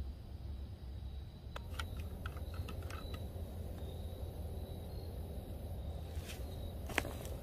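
Footsteps crunching on dry leaf litter: a run of light crackles about a second and a half in, and two sharper snaps near the end, over a steady low rumble.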